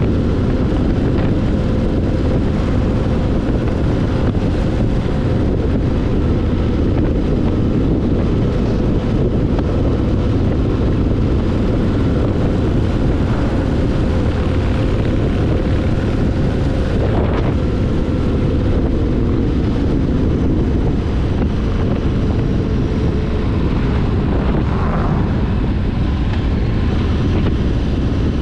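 Motorcycle cruising at a steady speed on the open road: the engine hums evenly under heavy wind rumble on the bike-mounted microphone.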